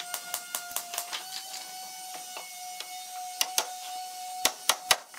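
Sharp wooden taps and knocks as wardrobe panels and rails are fitted together by hand: quick light taps at first, then a few louder knocks near the end. A thin steady whine runs underneath.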